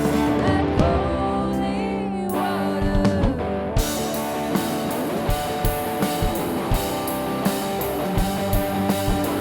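Band music with guitar and singing. The highs drop away from about half a second in until nearly four seconds in, then the full band returns with a steady drum beat of about two hits a second.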